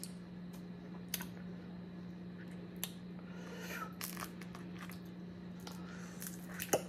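Boiled crawfish being peeled and eaten by hand: scattered small cracks, crunches and wet mouth and finger-sucking sounds, over a low steady hum.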